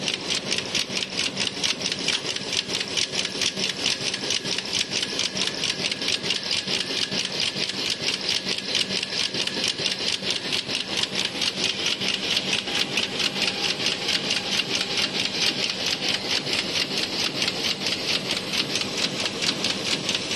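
Warp knitting machine running at speed while knitting mesh vegetable-bag netting, giving a rapid, even mechanical clatter.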